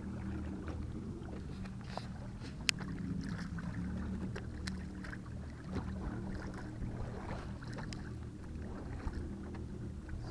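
Boat's motor humming steadily, with small splashes and knocks at the water's edge and one sharp click a few seconds in.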